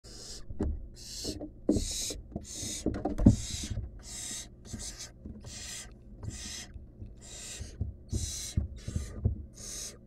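Barn owl nestlings giving their hissing food-begging calls over and over, about three every two seconds. Low thumps and scuffles from birds moving on the wood-chip floor of the nest box are loudest about three seconds in.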